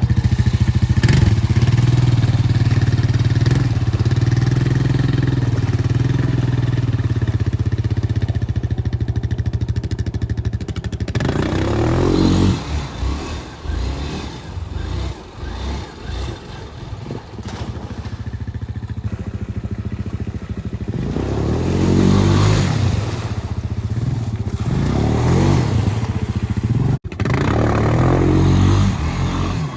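Small off-road vehicle's engine running steadily at first, then revving up and down several times, with rising and falling pitch, from about twelve seconds in.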